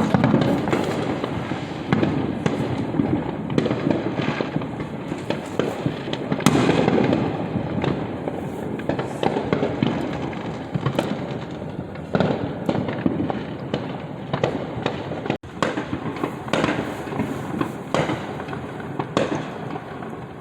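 Fireworks going off in many overlapping bangs and pops, some sharp and some more distant, over a constant rumble of explosions, with no break.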